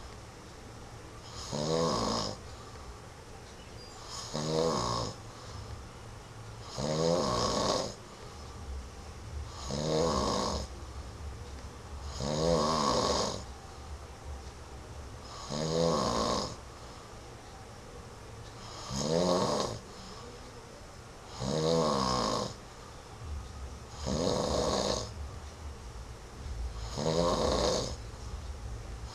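A sleeping man snoring in a steady rhythm, about ten snores each around a second long and rising in pitch, one every two and a half to three seconds.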